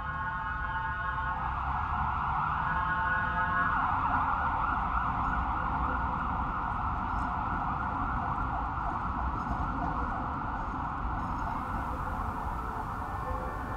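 A siren wailing over a steady low rumble, fading near the end.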